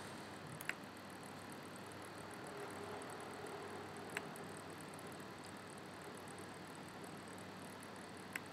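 Three short, sharp pointer clicks a few seconds apart as on-screen buttons are pressed, over a faint steady hiss.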